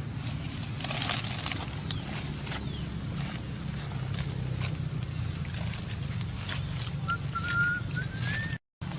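Outdoor ambience: a steady low rumble with scattered light clicks, and a thin, rising squeal-like call for about a second and a half near the end.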